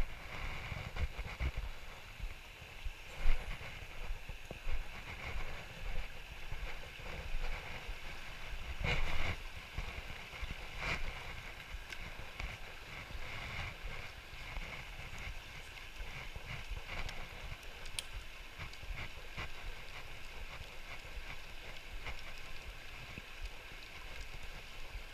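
Steady rush of a flowing river, with scattered knocks and rustles from a spinning rod and reel being handled close to the microphone.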